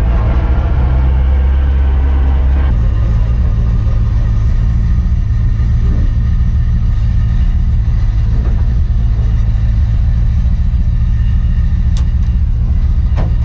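LS3 V8 of a Dodge Charger running at low speed with a steady deep rumble, heard first from outside as the car drives by and then from inside the cabin, with a single sharp click near the end.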